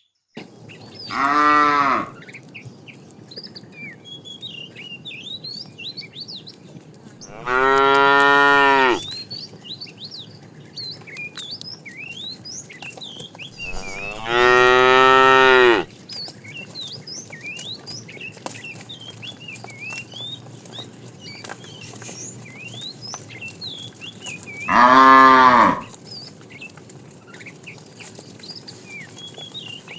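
Cows mooing: four loud, drawn-out moos, the longest about two seconds, spaced several seconds apart. Faint high chirps are scattered in between.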